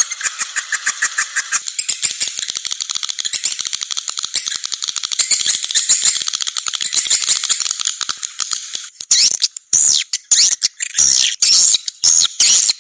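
Swiftlet lure-call recording: dense, rapid high-pitched twittering and chirping of swiftlets, played to draw the birds into a swiftlet house. About nine seconds in it breaks into separate short chirps with brief gaps.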